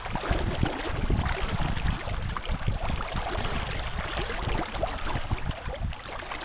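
Wind buffeting the microphone in uneven gusts over water washing against a small boat.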